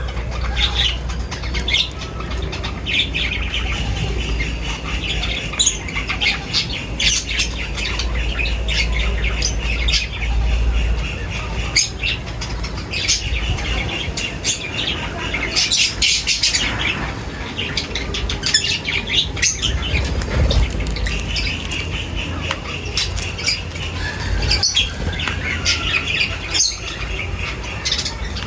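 Many birds chirping and squawking at once in a dense, unbroken chatter of short calls, with some wing flapping and a steady low rumble underneath.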